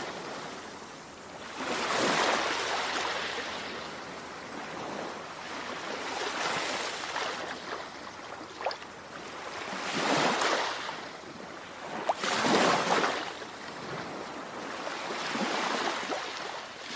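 Ocean waves washing in and drawing back, swelling and fading about every three to four seconds.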